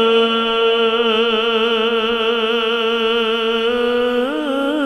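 A naat reciter's solo male voice holding one long sung note with no instruments. It is steady at first, then wavers in pitch, and steps up to a higher note about four seconds in.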